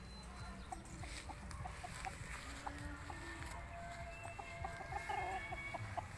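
Black Australorp chickens clucking in short, scattered notes.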